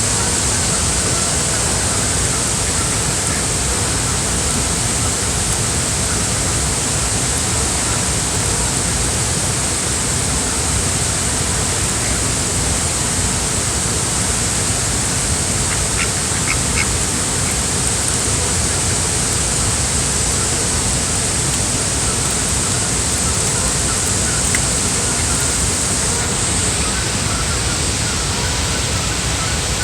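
Ducks quacking now and then over a steady rushing noise.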